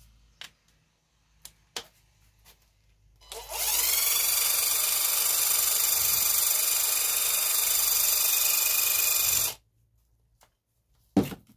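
Cordless impact wrench with a socket fitted, spinning freely for about six seconds: a quick rising whine as it spins up, then a steady high whirr that cuts off suddenly. A few light clicks come before it, and a single knock near the end.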